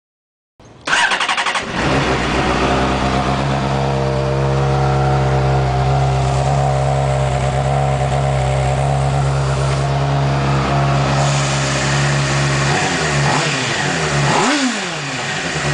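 2008 Honda CBR600RR inline-four engine starting up, catching within a second and settling into a steady idle through its exhaust. Near the end it is revved briefly twice, the pitch rising and falling each time, before it returns to idle.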